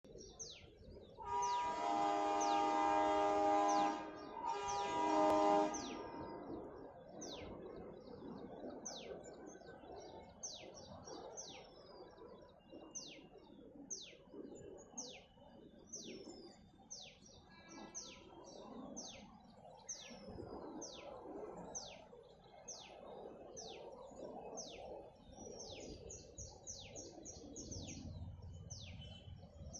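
ALCO WDG-3A diesel locomotive's horn sounding a long blast and then a shorter one in the first six seconds. After that a bird repeats a short falling chirp about once a second over a faint low rumble.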